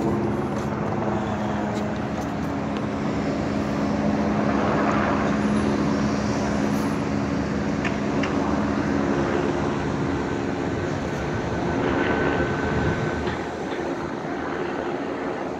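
Helicopter overhead, a steady engine and rotor drone, mixed with city street traffic.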